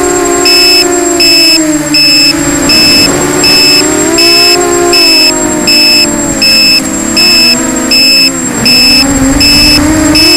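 Eachine EC250 racing quadcopter's brushless motors whining in flight, the pitch wavering and dipping with throttle. A loud electronic beeper sounds over it about every 0.7 s from half a second in.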